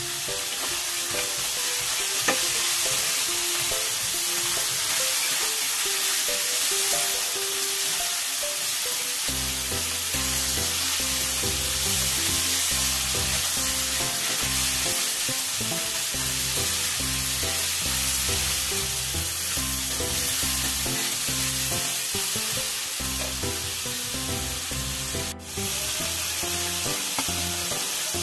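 Chicken pieces sizzling as they fry in oil in a stainless steel pan, with the scrape and knock of a utensil turning them. Background music plays over it, and a bass line comes in about nine seconds in. A brief dropout comes near the end.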